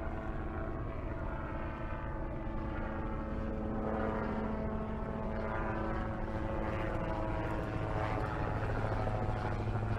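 A helicopter flying overhead, its steady drone growing gradually louder.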